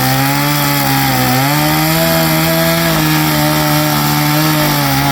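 Chainsaw running at high revs, cutting into a felled pine tree. Its pitch steps up slightly about a second and a half in and then holds steady.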